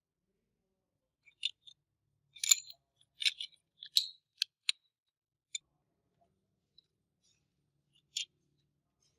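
Irregular sharp clicks and light taps of small tools and parts being handled, about a dozen in all, clustered in the first half and one more near the end.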